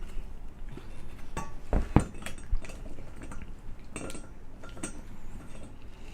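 Metal parts of a motorcycle paddock stand clinking and knocking together as it is assembled by hand. There is a run of sharp metallic clinks with short ringing, the loudest about two seconds in, and a few more about four to five seconds in.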